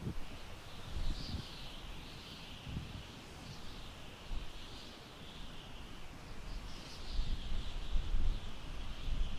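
Wind gusting through tall grass and buffeting the microphone, picking up about two-thirds of the way in. A continuous, high-pitched, wavering chorus of small animals runs in the background.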